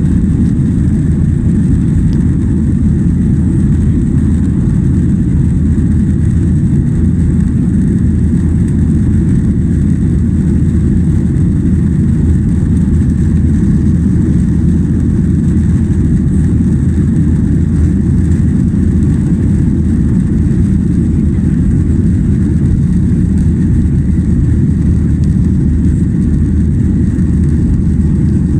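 Steady loud cabin noise of a Boeing 737-800 under takeoff power: the CFM56-7B turbofans and the airflow make an even low rumble with a faint high whine, with no change in pitch or level.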